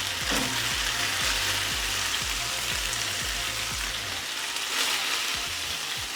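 Marinated chicken pieces sizzling in hot oil in a frying pan, a steady frying hiss.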